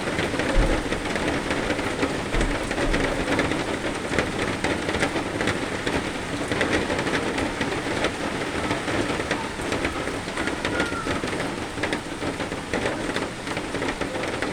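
Steady rain, a dense even hiss full of separate drop ticks. Two short low rumbles come in the first three seconds.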